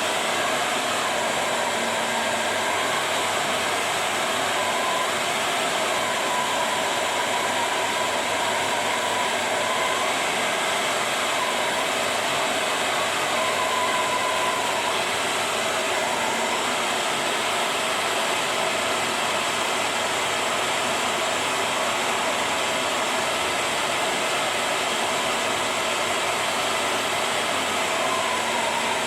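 Hair dryer blowing steadily, used to heat-shrink a plastic bottle sleeve, with a faint whine that wavers in pitch now and then.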